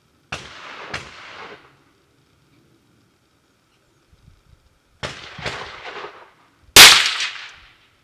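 Rifle shots: five sharp reports, each trailing off in an echo. Two come close together near the start, two more about five seconds in, and the loudest comes near the end.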